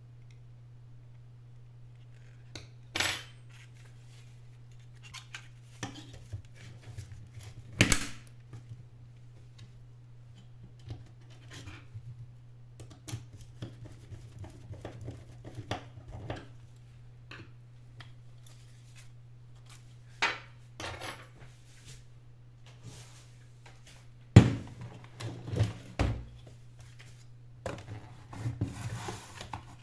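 Scattered clicks, knocks and light clatter of small hard parts being handled and set down during work on a vacuum cleaner's turbo brush. The sharpest knocks come about 8 seconds in and again near 24 seconds. A steady low hum runs underneath.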